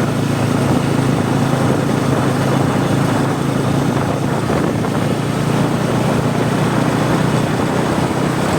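Bajaj Pulsar N250's single-cylinder engine and exhaust running steadily at a constant cruising speed.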